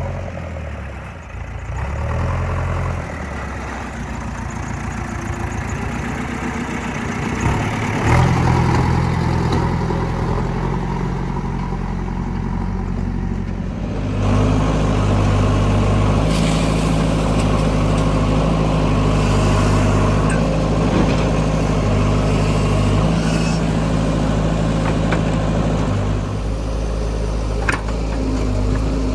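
Diesel engines of a backhoe loader and tractors running steadily. The engine note steps up and gets louder about halfway through, with a few short knocks in the second half.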